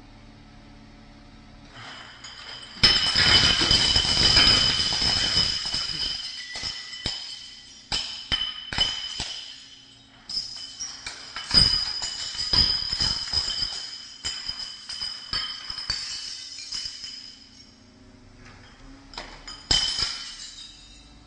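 Glass beer bottles crashing and smashing in a sudden loud burst about three seconds in, then clinking, ringing and tinkling of bottles and broken glass in waves, with another crash near the end.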